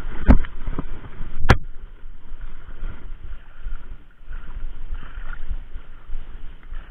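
Shallow muddy floodwater sloshing and splashing as someone moves and wades through it. There are two sharp knocks in the first second and a half.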